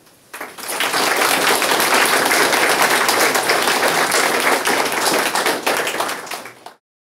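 Audience clapping and applauding, starting about half a second in and building within a second to a dense, steady patter of many hands, then cutting off suddenly near the end.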